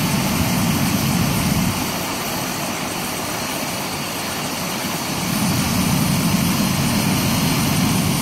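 A medical helicopter on the ground running at idle, its turbine engine and main rotor turning with a steady, dense noise. The noise drops somewhat about two seconds in and swells back a few seconds later.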